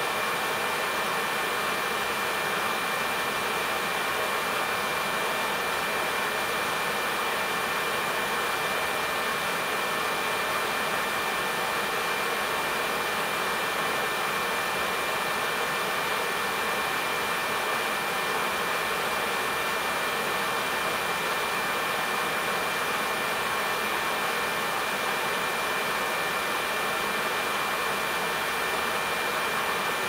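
Heating boiler burner running steadily: a constant rushing roar, with a thin steady high tone running through it.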